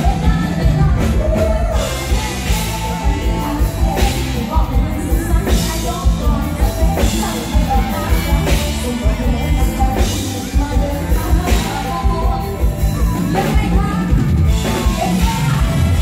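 Live band music with a woman singing into a microphone, amplified through the stage sound system, over a steady drum beat.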